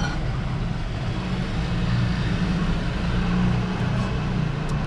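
Steady, deep outdoor rumble with a fainter hiss above it, unbroken throughout; no single event stands out.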